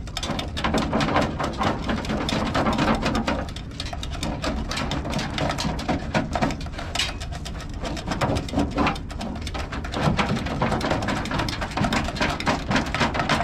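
Irregular rustling, scraping and crackling of a taped wiring harness being wiggled and dragged through the car body, a quick jumble of small clicks with no steady rhythm.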